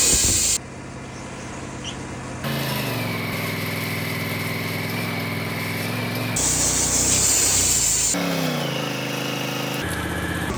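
Wood-Mizer LT40 band sawmill running, its engine note changing abruptly every few seconds, rising in pitch once and dropping near the end.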